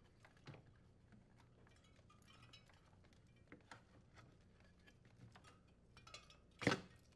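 Faint clicks and rustling of a plastic wiring cover being worked loose by hand from the evaporator wall of a wine cellar refrigerator, with one louder sharp click near the end as it comes free.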